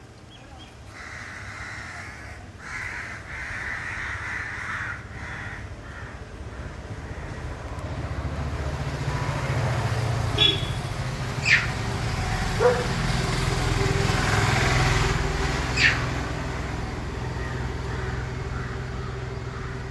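Hiccups: four short, sharp hics, the first three about a second apart and the last after a longer pause, over a steady low rumble.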